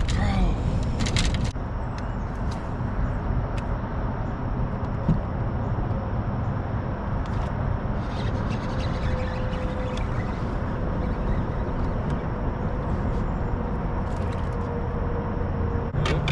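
Bass boat's outboard motor running steadily, a constant low rumble.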